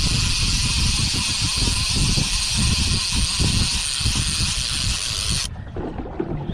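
Wind buffeting the microphone with uneven low rumbling under a steady loud hiss. The hiss cuts off suddenly about a second before the end.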